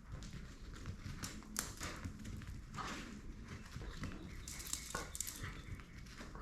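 A dog moving about, making faint, irregular rustles and soft clicks.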